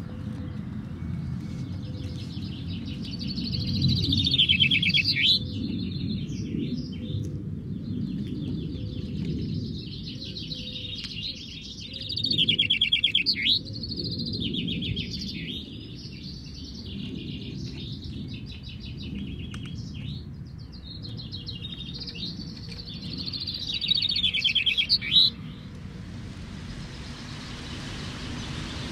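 Several caged male chaffinches singing over a steady low rumble. The nearest gives three loud full songs about ten seconds apart, each a fast trill falling to a flourish at the end, with fainter songs from the other birds in between. In a vinkenzetting, each complete song like these is counted toward the bird's score.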